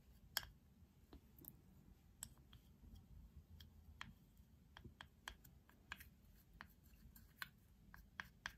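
A metal-tipped tool scraping and picking pressed eyeshadow out of a small plastic compact, making irregular light clicks and scratches as the tip knocks against the case. The sharpest click comes just after the start, and a few come close together near the end.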